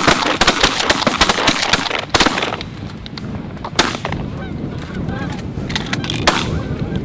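Canada geese honking over a goose decoy spread, with several shotgun shots, the densest run in the first two seconds and single shots spaced through the rest.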